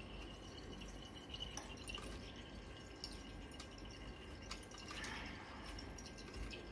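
Faint drips and swirling of liquid in a glass conical flask during a titration, as sodium thiosulfate is run in from a burette, with a few light clicks of glass scattered through.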